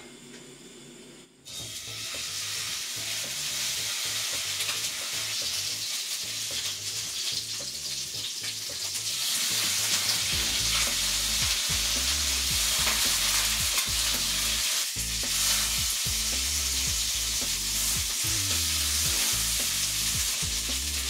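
Beef striploin steak searing in a hot frying pan: a steady sizzle that starts about a second and a half in and grows louder about halfway through.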